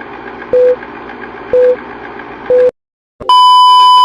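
Electronic telephone-style tones over a hiss: four short beeps about a second apart, then a brief silence and a loud, steady, higher beep lasting about a second.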